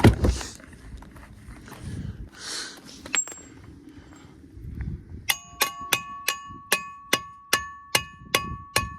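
Rummaging sounds and a single sharp click, then from about five seconds in a hammer striking metal on the wheel hardware, about three ringing clangs a second, during a tire change.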